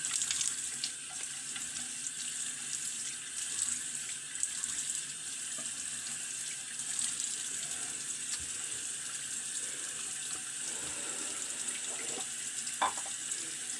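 Bathroom sink tap running steadily, with a few small splashes as the face is wetted for shaving.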